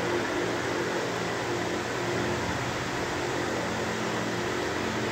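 Steady mechanical hum with an even hiss and a few faint steady tones.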